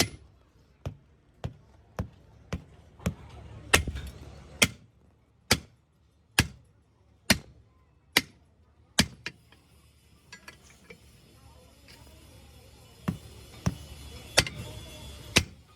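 Hammer blows on a steel truck rim, struck at a steady pace of a little over one a second, then stopping for a few seconds before four more blows near the end.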